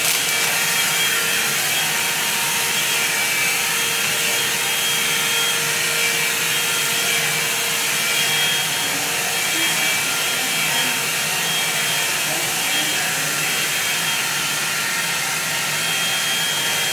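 A blower running: a steady airy hiss with a faint thin whine in it.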